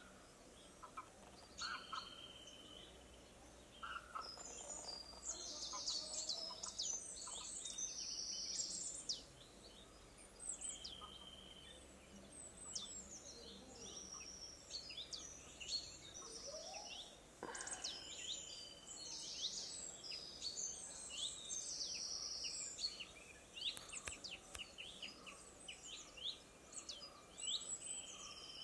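Wild birds calling: many short high chirps, quick falling sweeps and whistled notes from several birds overlapping, over a faint background hiss.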